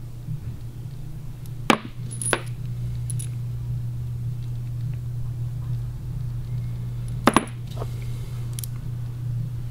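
Steel mounting bolts clinking as they are handled and set down on a workbench: two sharp clinks about two seconds in, then a quick double clink and a couple of lighter ones about seven to nine seconds in, over a steady low hum.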